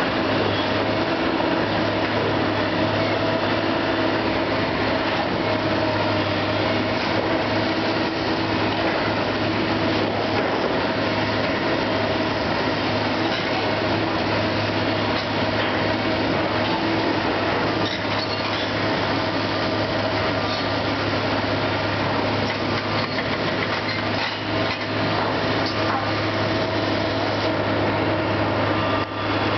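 Kobelco hydraulic excavator's diesel engine running steadily with a constant low hum, with scattered knocks and clatter of brick and timber debris as it works the demolition rubble.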